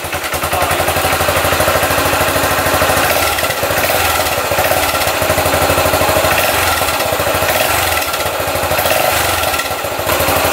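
Yamaha SR400's air-cooled single-cylinder engine idling through its stock muffler, an even, steady beat of exhaust pulses. The standard exhaust note is soft and very quiet.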